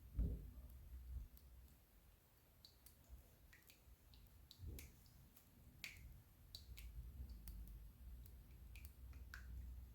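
Hamilton Beach Scoop single-serve coffee maker brewing: faint scattered clicks and small pops over a low rumble that swells and fades.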